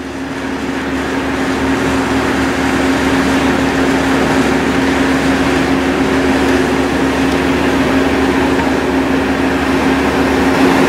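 A large car ferry's engines and ventilation running at the berth: a steady mechanical drone with a constant low hum, swelling slightly over the first couple of seconds.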